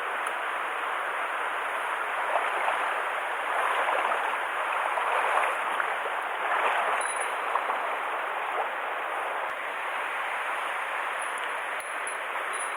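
Mountain stream water rushing steadily, a little louder between about three and seven seconds in.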